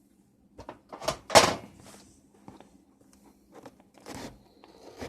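A taped cardboard shipping box being handled and pulled open: a few short scrapes and knocks of cardboard and tape, the loudest about a second and a half in.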